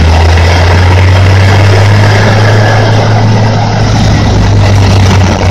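Bandit Beast tracked horizontal grinder running flat out as it chews brush fed in by an excavator grapple: a loud, steady, low engine drone under a constant rush of grinding noise.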